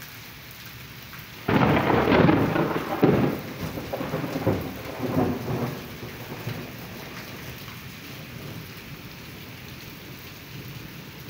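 A loud thunderclap breaks in suddenly about a second and a half in and rolls on in several rumbling peaks for about four seconds before fading. Steady heavy rain patters on a paved yard throughout.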